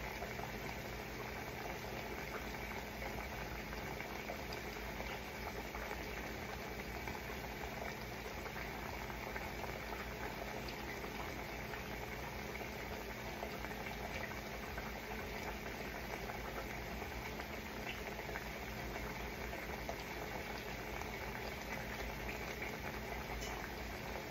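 A pot of food boiling on the stove: a steady bubbling with fine crackle, over a faint steady hum.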